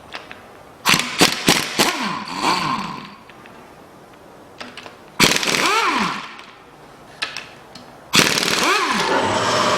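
Cordless power wrench spinning out the oil pan bolts in three bursts. The motor whirs up and down with the trigger, with a clatter of rapid impacts near the start. It runs steadily at speed in the last burst.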